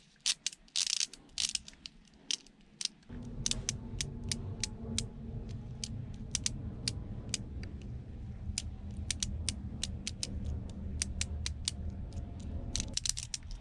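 A small motor-driven mechanism running with a steady hum for about ten seconds, starting and stopping abruptly, with quick irregular clicking over it. A few separate clicks come before it starts.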